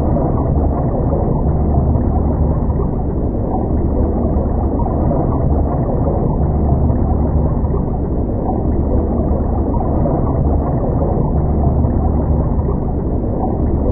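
Underwater ambience sound effect: a steady, low rumble of water with no break.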